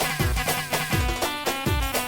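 Instrumental Middle Eastern dance music: a steady beat of deep drum hits under held melody notes.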